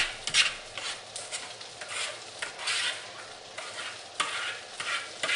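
Spoon scraping cauliflower mash out of a mixing bowl into a baking pan: a series of irregular wet scrapes, with a few sharp knocks of the utensil against the dish.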